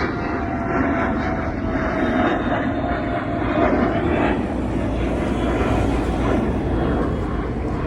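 A jet airliner passing low overhead: steady engine noise with thin whining tones that glide slowly down in pitch, loudest around the middle.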